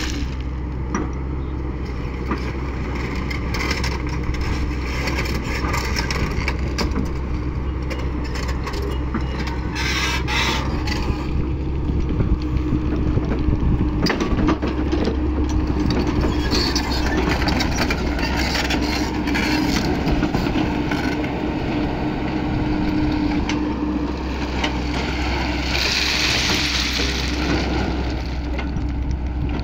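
Hyundai crawler excavator running steadily, its diesel engine humming under a steady whine, while its bucket scrapes and pushes crushed stone with scattered crunching and knocking of stones. A brief loud hissing rush comes near the end.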